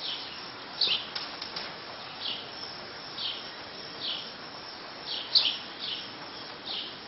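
Small birds chirping in the barn: short falling chirps repeating about once a second, over a steady background hum. A few light clicks come about a second in.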